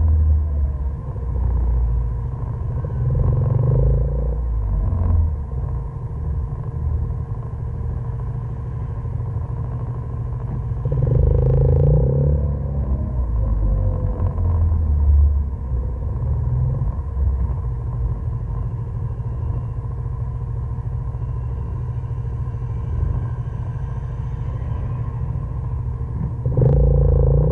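Side-by-side UTV engine running as it drives along a gravel trail, with a steady low rumble and a faint steady whine. It swells louder under throttle about three seconds in, around eleven seconds, and again near the end.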